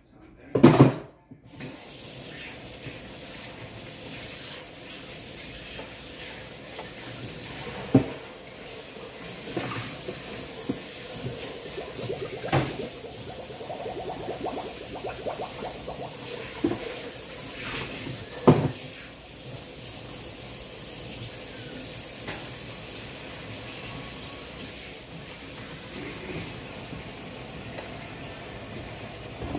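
Kitchen tap running steadily into the sink, with a loud clatter about a second in and a few sharp knocks of things handled at the sink.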